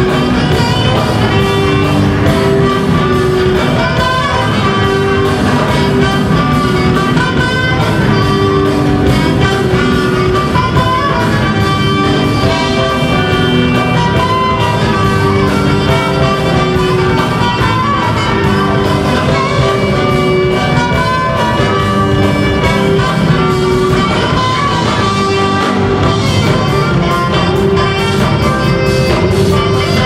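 Live jazz fusion band playing, with two saxophones and a trumpet over drums, bass and keyboard.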